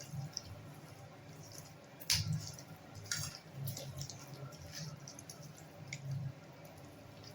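Hands kneading chicken legs in a thick, wet yogurt and spice-paste marinade: irregular soft squelches and smacks, the loudest about two seconds in.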